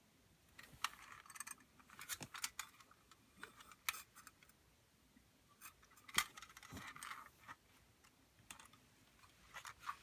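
Tin toy ray gun being handled: scattered light metallic clicks and rattles with brief rustling, the sharpest click about six seconds in.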